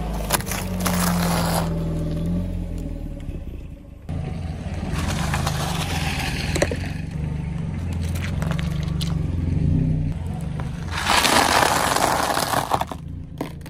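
A car tyre rolling slowly over objects and crushing them, in three separate crunches: waffle ice-cream cones, plastic drinking straws cracking, and dry spiral pasta, the last being the loudest. A car engine hums at low speed underneath.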